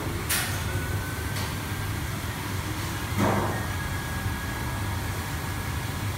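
Steady low hum of a commercial kitchen's extraction hood, with two brief clatters, one just after the start and one about three seconds in.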